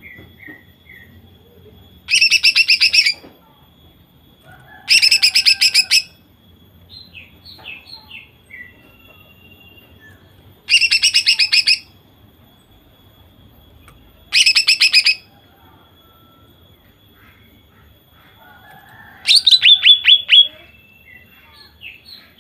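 Female green leafbird (cucak ijo) calling in five loud bursts of rapid repeated notes, each about a second long, with soft chirps between: the fast 'nembak' (shooting) call.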